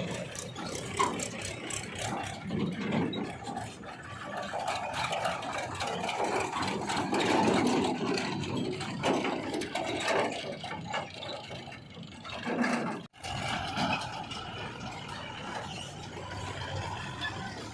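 Diesel engine of a JCB 3DX backhoe loader running under varying load as it digs and loads mud, with rattling and scraping from the work. The sound swells in the middle and cuts out for an instant about 13 seconds in.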